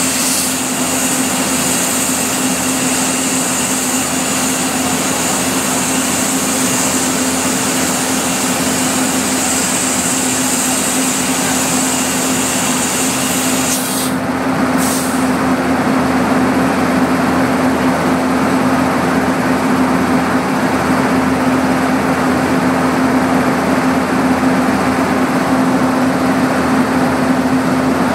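Compressed air hissing continuously from a leaking unloader (UL) valve under an Indian Railways electric locomotive, over a steady hum from the locomotive; the leak has cut off the locomotive's tractive effort. About halfway through, the highest part of the hiss cuts off suddenly, with one short burst just after, and a lower rush of air carries on.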